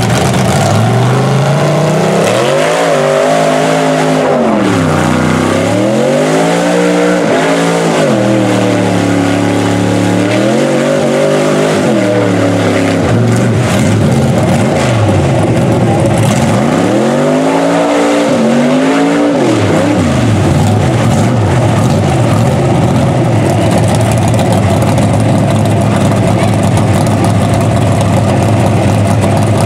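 Chevy single-cab pickup engine revved hard several times, climbing and falling in pitch, then held wide open at high revs as the truck churns through deep mud.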